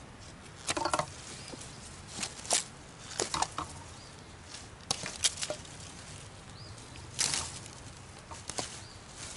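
Swiss Army knife blade whittling a freshly cut, leafy stick: a series of short scraping cuts at irregular intervals, a second or so apart.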